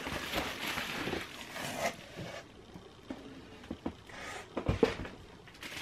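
Bubble wrap and a cardboard box rustling and crinkling as a bubble-wrapped handbag is lifted out of the box, with a few light knocks and a dull thump about five seconds in.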